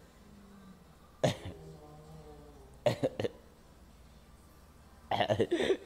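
A person coughing: one sharp cough about a second in, three quick coughs around three seconds in, and a ragged run of coughs near the end.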